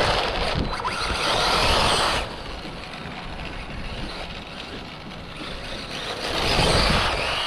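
Traxxas Bandit RC car running at speed, its motor whine and tyre noise loud for the first two seconds, dropping away sharply, then building again near the end as it comes back past.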